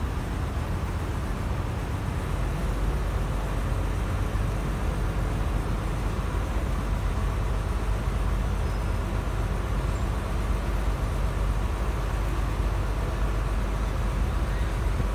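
River car ferry's engine running with a steady low rumble as the ferry pulls away from the landing.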